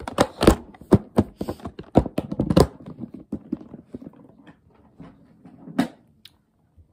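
Rummaging through plastic storage containers of small items: a quick run of clicks and knocks for about three seconds, then scattered quieter ones and a single sharp knock near the end.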